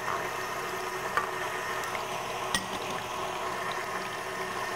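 Electric stand mixer running at medium-high, its whisk beating eggs and milk into a thin batter with a steady whir. Two short knocks, about a second in and about halfway through.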